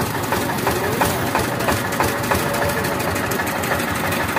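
Engine of a roadside sugarcane juice crusher running steadily.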